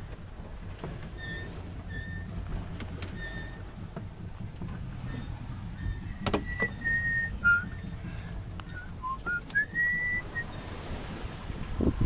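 A string of short, high whistling tones at changing pitches, several of them sliding upward near the end, over a steady low rumble. A single sharp knock about six seconds in.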